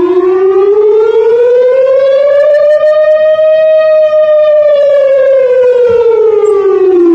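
Civil defence warning siren sounding in a test of the public warning system, loud, with one slow wail: the pitch climbs for about three and a half seconds, then sinks back down.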